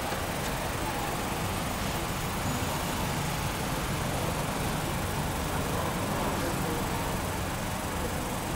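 Steady, even background noise with a low rumble and no distinct events.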